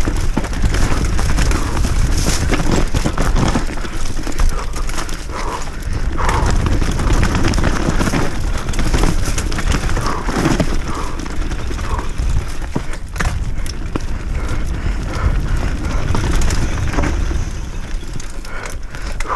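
Enduro mountain bike riding fast down a rocky dirt singletrack, heard from the bike-mounted action camera: a steady rumble of wind on the microphone under a constant rattle of the bike and clatter of the tyres over stones, with many sharp knocks.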